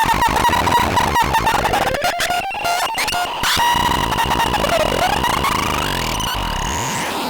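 Electronic noise-synth output from the DURUMBURUMBRUM 1: a harsh, glitchy held tone with gliding pitch and scattered clicks, swooping down and back up about five seconds in, then settling to a steadier tone.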